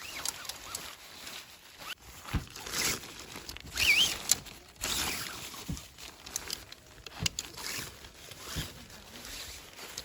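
Rustling, scraping and irregular knocks of camping gear being handled, with footsteps, and a brief high wavering chirp about four seconds in.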